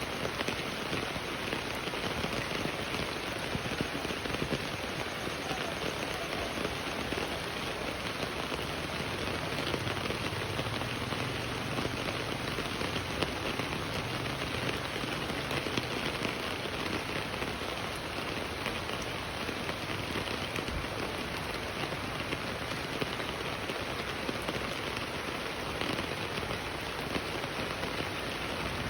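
Steady rain falling and hitting surfaces, an even, dense hiss of drops that holds without let-up.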